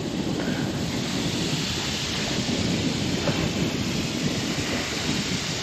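Steady wind rumble buffeting the microphone over the wash of the sea, a low, even noise with no distinct events.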